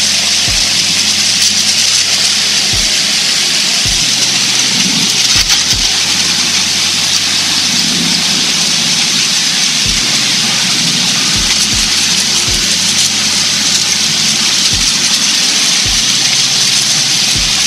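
Garden pump sprayer's wand spraying a fine mist of soapy water onto fern fronds: a steady hiss that runs without a break.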